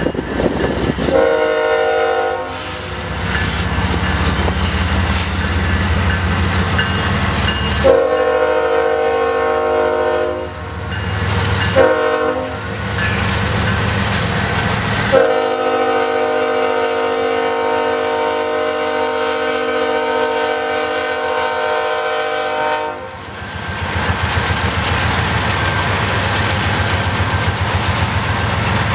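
Diesel locomotive's multi-chime air horn blowing the grade-crossing signal: two long blasts, a short one, then a final long blast held about eight seconds. A low diesel engine rumble runs under it as the locomotives move slowly past.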